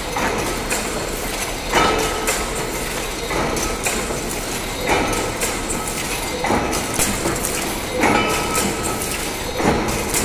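Wire-mesh weaving loom running, weaving 40-mesh 304L stainless steel wire cloth: a steady metallic clatter of fine clicks, with a louder, ringing clank about every second and a half.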